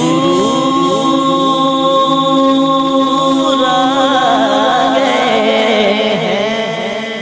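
Male voice singing a naat without instruments, holding long notes over a chanted vocal backing that repeats a short rising figure about twice a second.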